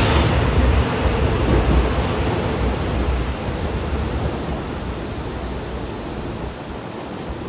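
Rumble of a GV-E197 engineering train's wheels and running gear fading away after it has passed, a steady rushing noise that slowly gets quieter.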